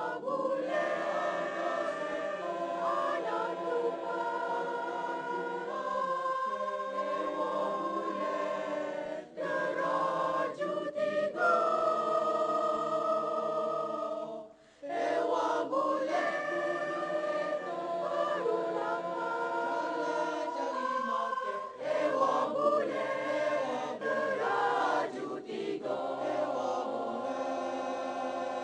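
Mixed choir of men's and women's voices singing in harmony, holding long chords, with two brief breaks about nine and fifteen seconds in.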